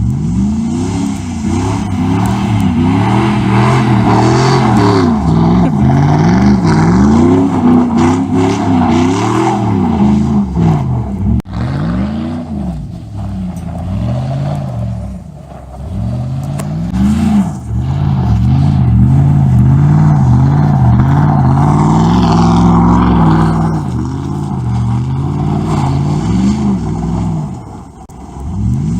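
Straight-piped 5.3-litre V8 of a 2005 Chevrolet Silverado, loud, revving up and down over and over as the truck drifts in snow, with brief lulls where the revs drop.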